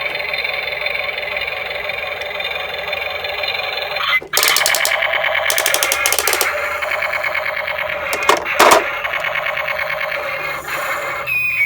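Electronic music with bursts of fast rattling, once about four seconds in and again a little past eight seconds.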